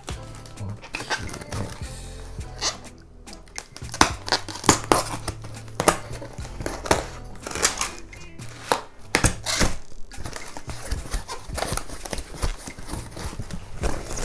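White foam packing wrap crinkling and rustling in irregular crackles as a plastic fairing panel is unwrapped, louder and sharper from about four seconds in, over background music.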